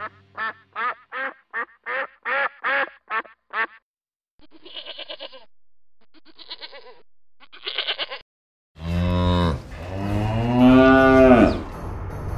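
A duck quacking in a quick run of about nine quacks, then fainter, more widely spaced quacking. About nine seconds in, a long, loud bovine moo follows, its pitch rising and then falling.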